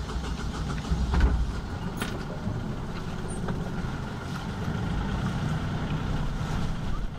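Sailing yacht's inboard engine running with a steady low rumble, with a louder thump about a second in and a click about two seconds in.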